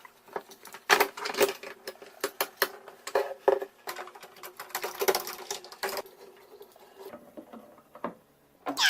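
Irregular light clicks and taps of small hard toy pieces being handled, over a faint steady hum that stops about seven seconds in.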